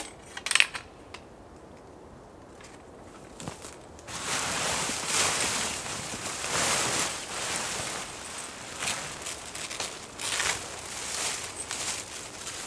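A couple of sharp knocks about half a second in, then from about four seconds in a long stretch of rustling and crinkling as tent fabric and a crumpled sheet are pulled and handled while the tent is pitched.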